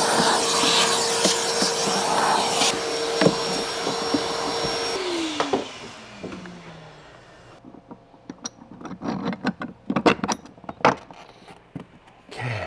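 Shop vacuum running with a steady whine, switched off about five seconds in and winding down, its pitch sliding lower as the motor slows. Then scattered light clicks and knocks as plastic mount parts are handled.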